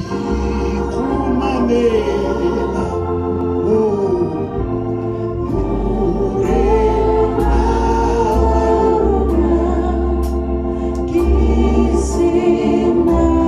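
Organ music with sustained chords and deep bass notes, a voice singing along over it.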